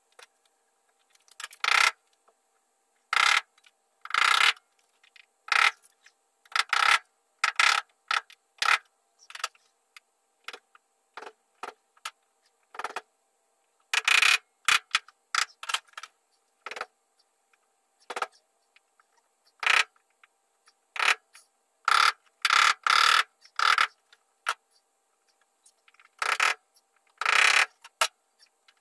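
A screwdriver clicking and scraping against the metal body of a 1954 VW Beetle. It comes as dozens of short, irregular strokes, sometimes several in quick succession, with a faint steady hum underneath.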